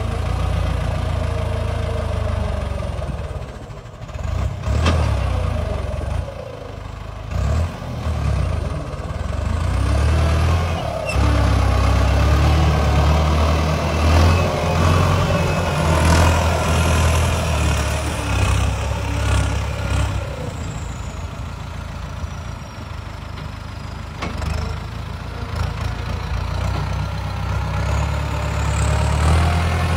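Turbocharged diesel engine of a Ford 6610 tractor working under load as it pulls a disc plough through soil. It rises and falls in loudness, dropping back briefly a few seconds in and running louder from about a third of the way through.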